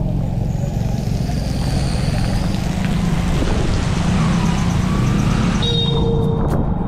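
Steady low rumble of a motorbike ride through a rain-flooded street: engine and tyres on wet road, with hiss up top. A short high-pitched tone sounds near the end.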